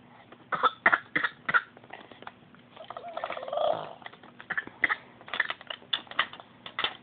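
Odd vocal noises: a string of short huffs and clicks, with one longer drawn-out pitched sound about three seconds in.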